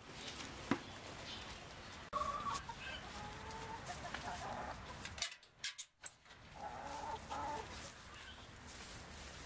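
Chickens clucking in a coop, with several drawn-out calls, a sharp knock about a second in, and a brief drop-out in the sound just past halfway.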